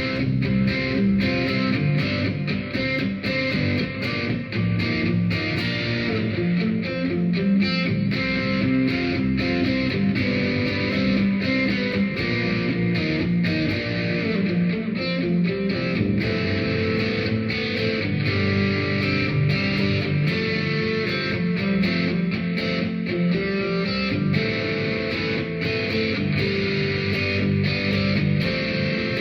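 EVH Frankie electric guitar played through its neck pickup into a plexi-style amp profile with gain, overdriven riffs and picked lines.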